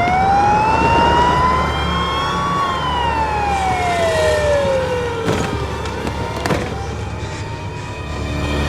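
Siren wailing: its pitch rises slowly, sinks over a few seconds, then starts to rise again, over a steady low rumble. Two short sharp knocks sound in the second half.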